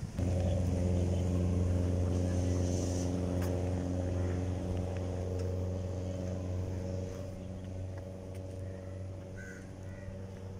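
A vehicle engine running steadily at one unchanging low pitch, a deep hum that starts suddenly and slowly fades.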